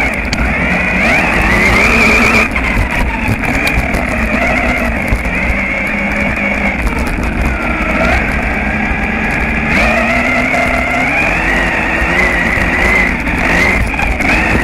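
Radio-controlled buggy's motor whining, its pitch rising and falling with the throttle, over the steady rush of tyres on gravel, heard close from a camera mounted on the car.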